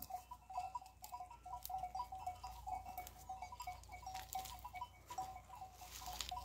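Faint clinking of small bells on grazing sheep, short ringing notes at two pitches sounding irregularly, a few times a second.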